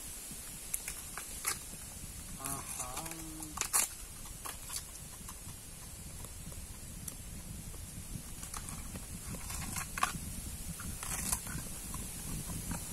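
Knife chopping and peeling the sheaths off a wild bamboo shoot. It makes irregular sharp knocks and cracks, with the husks tearing away.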